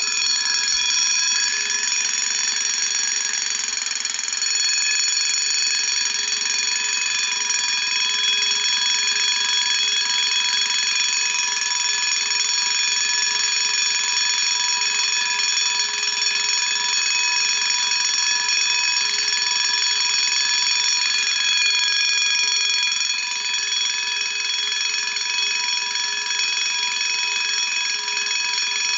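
Vanguard Protection System V-2 wind-up heat detector bell (a 136-degree, spring-driven local alarm bell) ringing continuously at full volume after being set off. The ring is a steady, dense metallic clang.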